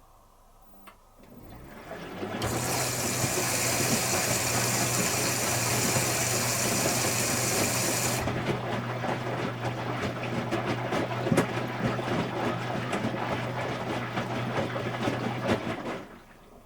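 Electrolux Wascator W355H commercial washing machine moving water: a steady hum with rushing water that hisses for about six seconds, then turns to gurgling and crackling before it cuts off suddenly near the end.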